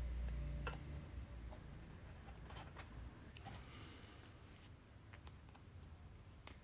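Small handling noises from craft work: light clicks, scrapes and rubbing, with a low rumble in about the first second.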